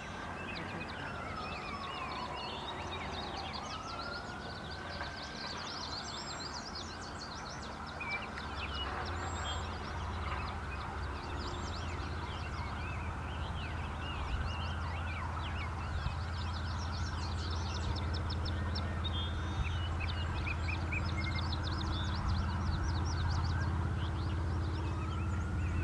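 Outdoor ambience: many small birds chirping over a steady rushing background. A siren wails up and down near the start and rises again near the end, and a low engine hum comes in about eight seconds in.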